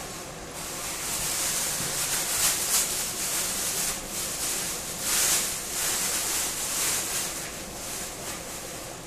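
Chicken and chopped tomatillo sauce sizzling in a pot on the stove: a steady hiss that swells and fades in waves.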